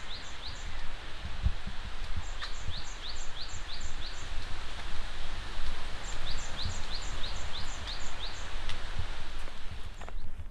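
Wind through forest foliage with low rumbling on the microphone, and a bird repeating a short rising chirp about three times a second in three runs.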